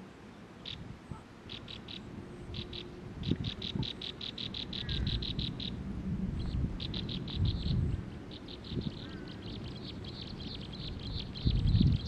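Rapid, high-pitched chip notes from small songbirds at a nest of young, in runs of about seven or eight notes a second that start and stop and then run on steadily through the second half. Low rustling and soft bumps sound underneath.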